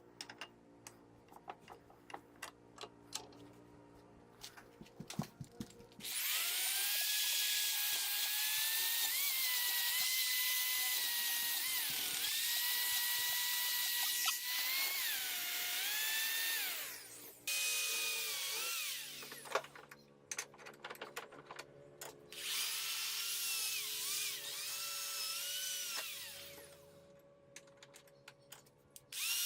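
A small handheld electric power tool, such as a drill or rotary tool, used on the rusty cast-iron grinder parts. Light clicks and knocks of handling come first; then the motor whines for about ten seconds, its pitch dipping and recovering as it bites into the metal. It stops, and runs again twice more, more briefly.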